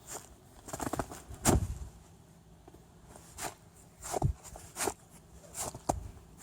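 Shoes crunching in snow as a person walks, about eight uneven steps with a short pause about two seconds in; the loudest crunch comes about a second and a half in.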